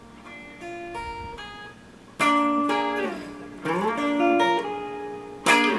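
Flying V-style electric guitar being played: a short run of single picked notes, then chords struck three times, with sliding notes leading into the second.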